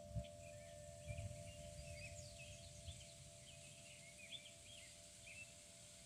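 Small birds chirping in many short, high notes over the faint, steady lingering ring of a wind chime's tones. A few low rumbles come and go in the first second or so.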